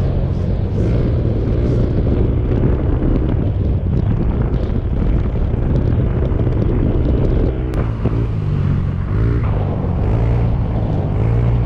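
Motorcycle at road speed: steady rush of wind on the microphone with the engine running underneath, and a few brief pitch swings in the second half.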